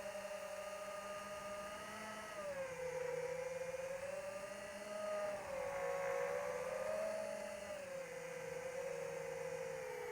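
Electric motor and propeller of an AtomRC Dolphin RC plane whining in flight, its pitch drifting up and down as the throttle changes.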